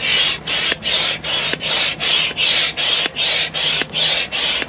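Hand pump inflating an inflatable tent's air beam through a hose: rapid, regular hissing strokes of air, about three a second.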